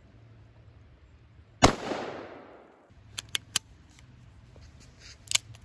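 A single revolver shot about one and a half seconds in, its report echoing and dying away over about a second before cutting off abruptly. About a second later come three quick sharp clicks, and a louder click near the end.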